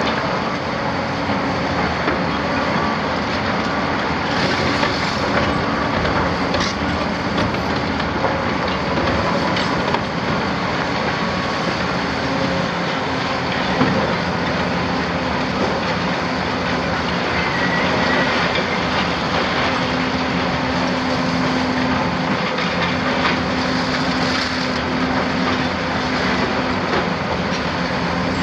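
Large hydraulic demolition excavators at work: a big diesel engine running steadily under load over a continuous clatter and crunch of broken debris and steel.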